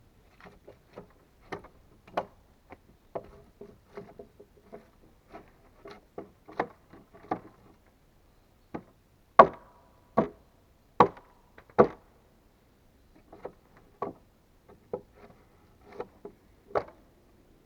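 Hand tool striking wood: a run of irregular light taps and knocks, with four heavy blows about a second apart near the middle, then more light knocks.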